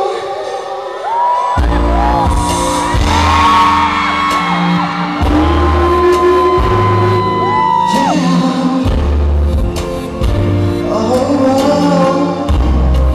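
Live pop song in a concert hall, recorded from the audience: a man sings over the music, and heavy bass comes in about one and a half seconds in, then keeps returning in long held notes.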